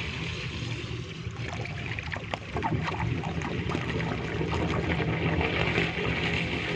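Water running and trickling into a drain, with scattered splashes between about one and a half and three seconds in.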